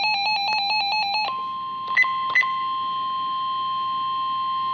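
Weather radio alert tones: a rapid warbling electronic beep for about a second, then the NOAA Weather Radio 1050 Hz warning alarm tone holding steady, with two short beeps about two seconds in. The steady tone is the signal that a warning is about to be read.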